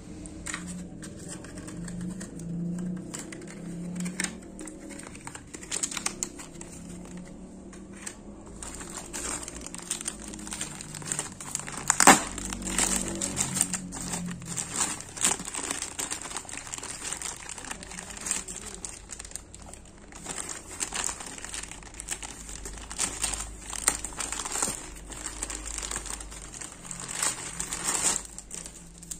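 Clear plastic bag crinkling and crackling as coiled refrigerant charging hoses are handled and unwrapped from it. The crackles come in irregular flurries, with the sharpest about twelve seconds in.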